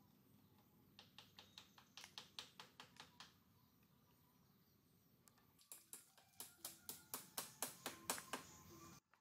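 Rapid, evenly spaced knocks of a hand tool striking wood, about four or five a second, in two runs; the second run is louder and stops abruptly near the end.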